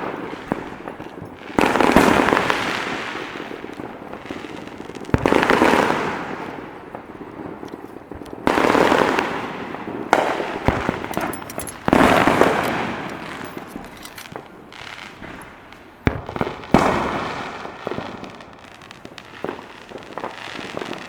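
Aerial fireworks shells bursting, about seven sudden booms spread irregularly, each trailing off over a second or two.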